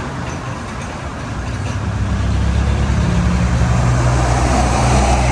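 A motor vehicle's engine running, a low rumble that grows louder from about two seconds in.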